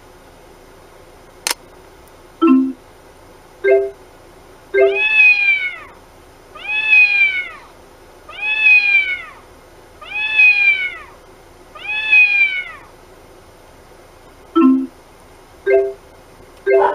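A car navigation unit's recorded cat-meow sound effect: five meows, each rising and then falling in pitch, coming about every 1.7 s. These are the alert chime for a registered location. Short electronic beeps come before and after the meows.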